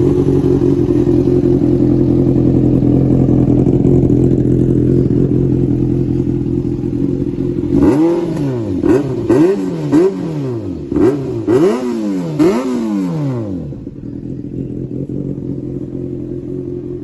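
Yamaha FZ 600 inline-four motorcycle engine idling through an aftermarket Kimoto Superbike muffler. About eight seconds in, it is revved with about six quick throttle blips, each rising and falling in pitch, then drops back to a steady idle.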